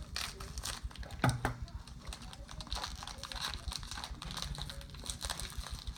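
Small plastic packaging bag crinkling and rustling as it is handled and opened, with many irregular small clicks. There is one louder sharp sound about a second in.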